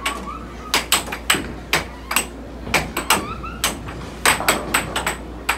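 Air hockey puck clacking against the plastic mallets and the table's rails in a rally: a quick, irregular run of sharp hard knocks.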